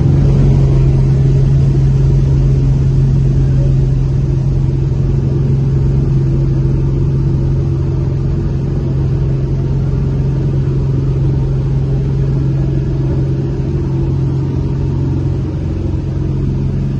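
Single-engine light aircraft's piston engine and propeller droning steadily, heard from inside the cabin.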